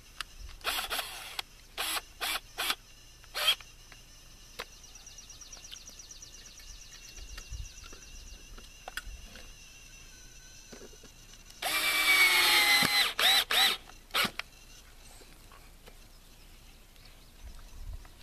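Power drill run in several short bursts, then one longer run of about a second and a half whose pitch slides as the motor speeds up and slows, followed by a few more quick bursts.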